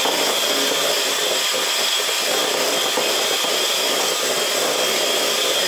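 Electric hand mixer running steadily with a thin high whine, its beaters whipping cheesecake pie filling in a glass bowl.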